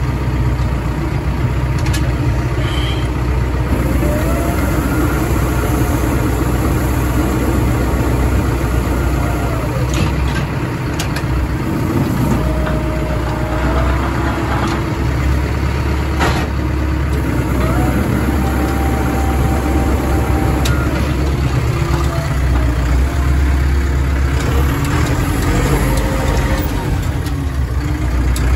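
A large engine or farm machine running steadily at a constant speed, with a few short pitched whines or calls over it.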